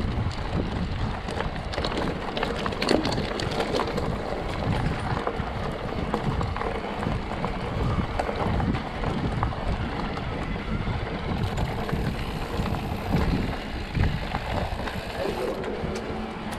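Mountain bike riding fast down a dirt singletrack: wind rushing over the microphone on top of the tyres rumbling on the ground, with many small clicks and rattles from the bike over rough terrain.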